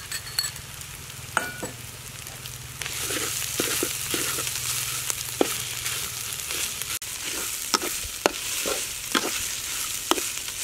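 Chopped chili and aromatics sizzling in oil in a steel wok while a metal spatula stirs and scrapes them, with the spatula clicking against the wok now and then. The sizzle grows louder about three seconds in.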